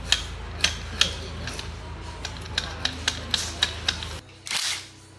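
A run of sharp clicks, about two or three a second, over a low steady hum; near the end the hum stops and two short bursts of hiss follow.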